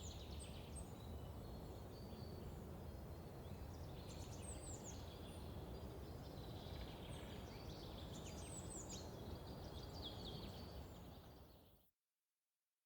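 Small birds chirping in short, quick, falling calls over a steady low outdoor background rumble; the recording fades out near the end into silence.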